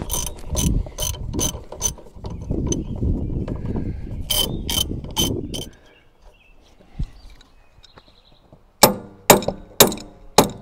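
Ratcheting wrench clicking in quick regular strokes as it backs off the castle nut on a tie rod end. After a short pause, a run of loud, sharp metal strikes comes near the end, about two a second: hammer blows knocking the tie rod end's stud loose from the steering knuckle.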